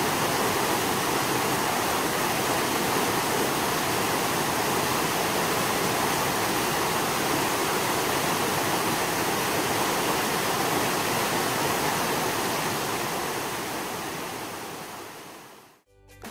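Rain-swollen, muddy stream rushing over rocks in a steady, even flow of water noise, which fades out over the last few seconds.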